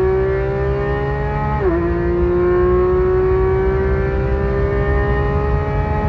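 Porsche 911 GT3 RS naturally aspirated 4.0-litre flat-six, with an aftermarket exhaust and tuned software, at full throttle, heard from inside the cabin. The engine note climbs steadily with road speed. A quick PDK upshift from third to fourth about one and a half seconds in drops the pitch, and it climbs again.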